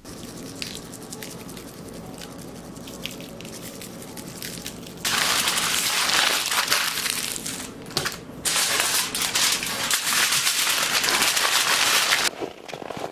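Foil bag crinkling and crumpling as it is handled, quieter at first and then loud from about five seconds in. The noise stops suddenly a second before the end.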